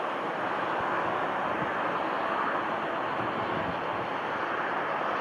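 Boeing 747-8 freighter's four GEnx jet engines, a steady rushing roar as the aircraft rolls down the runway after touchdown.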